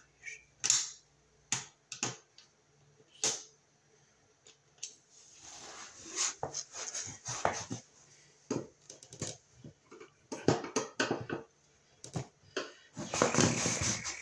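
Irregular sharp clicks and taps, with two longer stretches of scraping and rustling, from hand-working tools and parts at the thermostat end box of an electric baseboard heater.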